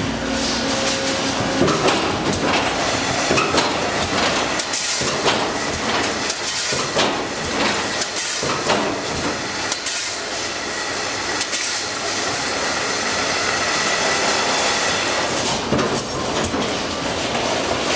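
Amada automated sheet-metal fabrication line running: a loud, continuous metallic clatter and rattle from the machinery, with many sharp knocks.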